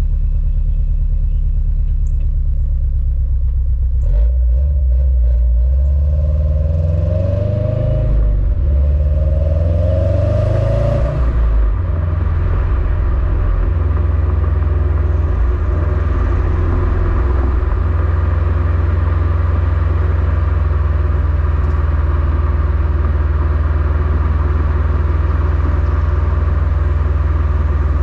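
Stock quad-tip exhaust of a 2021 Subaru WRX STI with its turbocharged 2.5-litre flat-four boxer engine, rumbling steadily as the car stands. About four seconds in it pulls away and the exhaust note rises twice as it accelerates through the gears, then from about twelve seconds on it holds a steady rumble at cruising speed.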